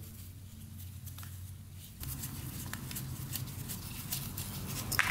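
Faint handling noises from a disassembled carburetor being turned in nitrile-gloved hands: light ticks and glove rustle, with one sharper click near the end. Under it runs a low steady hum that gets louder about two seconds in.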